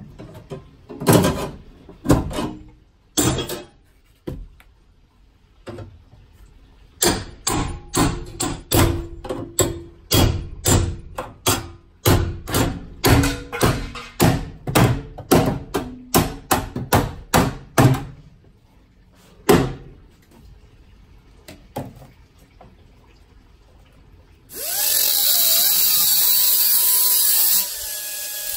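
Repeated hammer blows on metal in a van floor opening, quickening into a steady run of about two strikes a second. About 25 seconds in, an angle grinder starts and runs loud and steady with a wavering whine as it cuts sheet metal.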